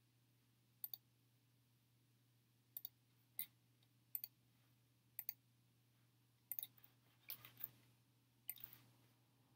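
Faint, scattered clicks at a computer, several in quick pairs and a short flurry near the end, over a steady low hum.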